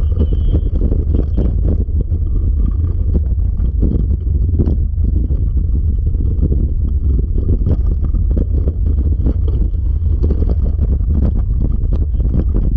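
Three-dog dryland rig rolling along a trail: a steady low rumble of the wheels and frame, with many small rattles and clicks throughout, and wind on the microphone.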